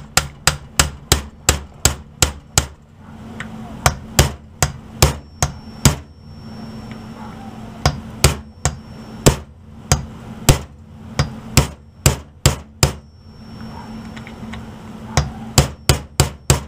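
Hammer tapping a punch to drive a roll pin into an AR-15 lower receiver, fitting a trigger guard. Quick runs of sharp taps, about four a second, broken by a couple of short pauses, with slower, spaced taps in between.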